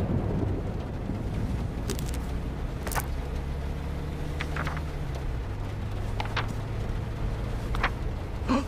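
Steady low rumble of a car driving, heard from inside the cabin, with a few short light ticks and rustles scattered through it.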